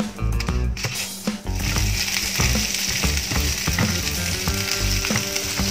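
Ground spice paste sizzling in hot oil in a frying pan while a wooden spatula stirs and scrapes it, the sizzle growing louder about a second and a half in; the paste is being fried until fragrant. Soft background music plays underneath.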